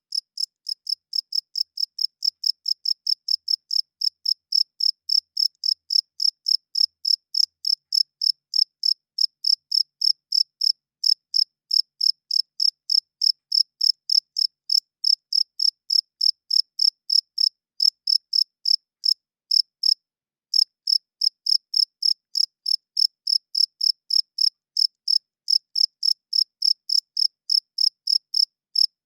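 Cricket chirping: a male rubbing its wings together in a steady, even train of short high-pitched chirps, about two to three a second, with one brief pause about two-thirds of the way through.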